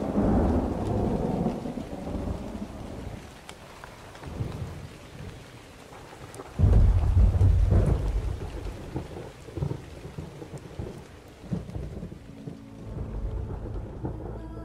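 Rain falling steadily with low rolls of thunder. The loudest roll starts suddenly about six and a half seconds in and dies away over a couple of seconds.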